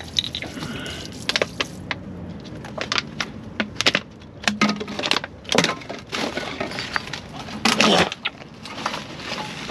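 Plastic bottles and plastic bags crinkling and clacking as they are handled and stuffed into a mesh bag in a dumpster: a run of sharp crackles, with louder crunches about halfway through and near the end.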